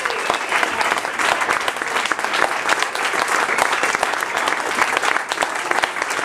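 Small crowd applauding at the end of a song: steady, dense hand-clapping.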